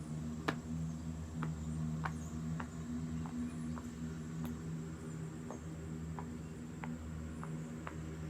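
Galaxy pop-it fidget toy's silicone bubbles being pressed one at a time: a short soft pop every half second to a second, over a steady low hum.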